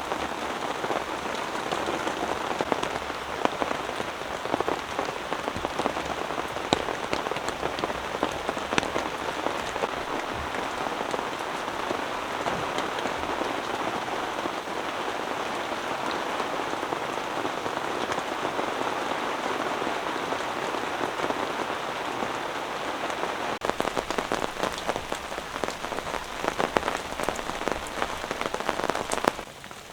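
Gentle, steady rain pattering on a tent, with a dense hiss of drops and individual heavier drops ticking. From about three-quarters of the way in, the heavier drop hits come more often.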